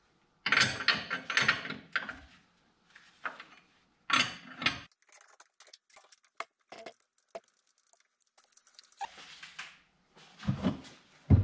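Metal tooling and parts clattering and clicking as they are handled at a milling machine's spindle and steel table: a run of separate clinks and rattles, then scattered light ticks. A couple of heavier thumps come near the end.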